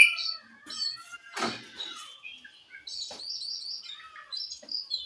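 Oriental magpie-robin (kacer) singing softly: a quiet run of varied twitters and chirps, with a short knock about one and a half seconds in.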